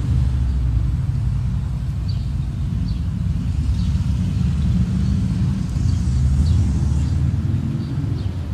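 Steady low rumble of breath buffeting the microphone as a smouldering tinder bundle is blown on to coax the ember into flame, with a few faint high ticks.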